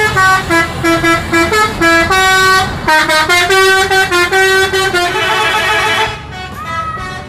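Tour bus's multi-tone 'telolet' horn playing a quick tune of stepped notes for about six seconds. Near the end a softer horn tone rises, holds and falls.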